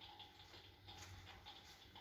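Faint, irregular crackling clicks from the electric fireplace hearth's simulated log-crackle sound effect, with a faint steady hum underneath.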